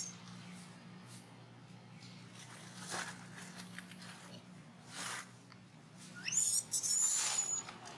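Short bursts of rustling and scuffing in dry leaves and twigs, loudest near the end. Brief high squeaks from a baby macaque come with them, one rising quickly in pitch.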